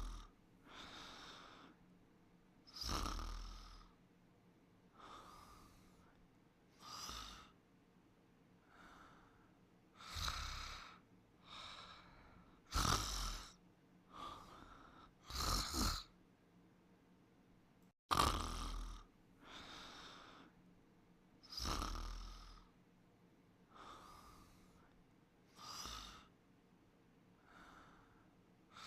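A sleeper snoring, one noisy breath every two to three seconds, some louder than others, with an abrupt break about 18 seconds in.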